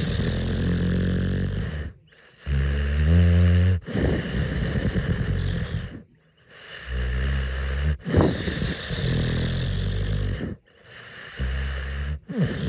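A dog snoring in long breaths about every two seconds, separated by short silent gaps; several of the snores have a low buzzing pitch.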